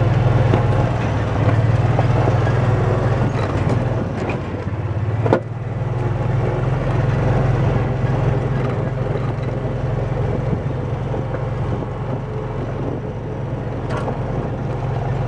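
Motor vehicle engine running steadily, with one sharp knock about five seconds in.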